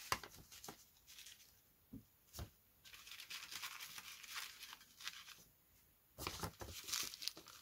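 Sheet of model-aircraft tissue paper rustling and crinkling softly as hands lay it dry over a balsa wing frame and smooth it down. There are a couple of light clicks about two seconds in, and a louder stretch of rustling near the end.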